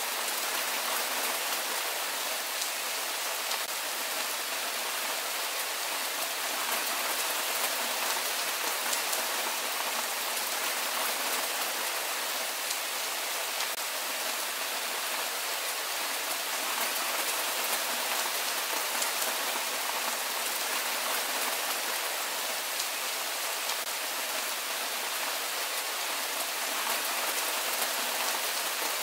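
Steady rain falling: an even hiss with scattered faint raindrop ticks, holding constant throughout.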